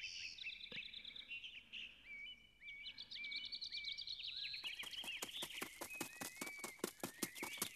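Jungle ambience: small birds chirping in short, repeated rising calls, quiet and layered. About halfway through a fast, even clicking joins them.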